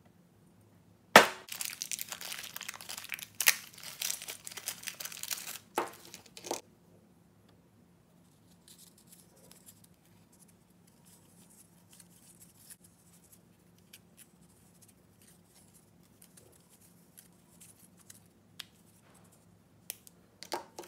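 Packaging crinkling and being torn open for about five seconds, starting with a sharp rip. After it, faint scattered clicks and clinks of small brass fittings being handled on a bench, with a few sharper clicks near the end.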